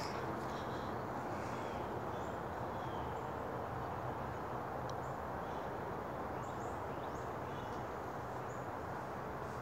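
Steady outdoor background noise with faint, brief bird chirps here and there.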